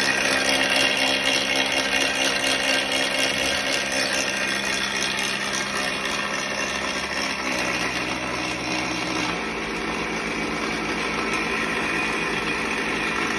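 Homemade electric boat motor running on its battery, the red propeller spinning in air with a steady whir and hum. The low hum shifts slightly about eight to nine seconds in.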